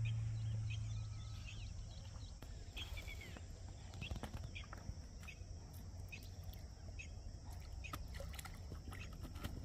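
Quiet riverside ambience with scattered short bird chirps, and a low hum that fades out over the first couple of seconds.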